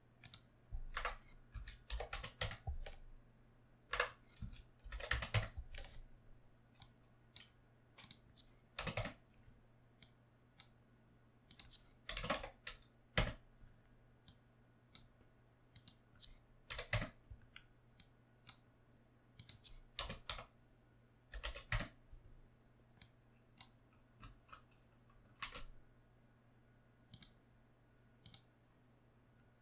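Computer keyboard keys and mouse buttons clicking: irregular sharp clicks, some single and some in quick clusters of a few, over a faint steady hum.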